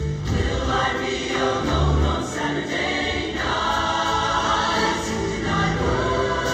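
A mixed show choir singing together in harmony over instrumental accompaniment, with a low bass line underneath.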